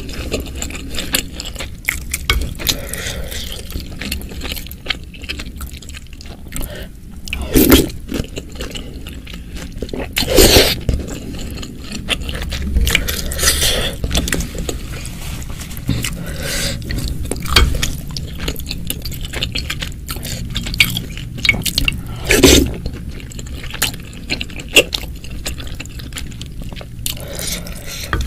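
Close-miked eating sounds: wet chewing of boiled wontons, and a wooden spoon scooping and scraping through spicy broth in a glass dish, with a few short louder sounds about 8, 10 and 22 seconds in.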